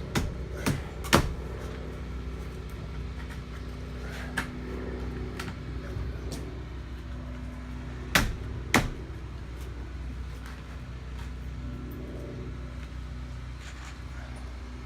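Sharp knocks of wooden fascia boards being handled and fitted, three in quick succession at the start and two more about eight seconds in, over a steady low hum.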